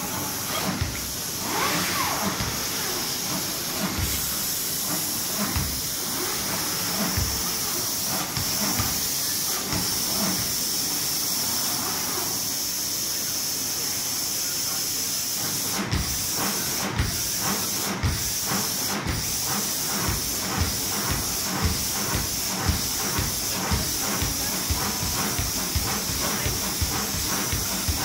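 Basketballs bounced on a wooden court floor by gantry robots. There are scattered single bounces at first, then a quick, regular run of bounces from just past midway as several balls are dribbled at once. A few sharp clicks about a second apart come just as the steady bouncing starts, all over a constant hiss.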